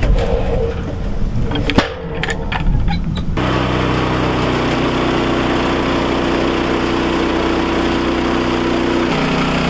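Woodland Mills HM130 Max sawmill's gas engine running, with a few sharp knocks in the first three seconds. About three and a half seconds in, the sound switches abruptly to a steady engine note that drops in pitch near the end.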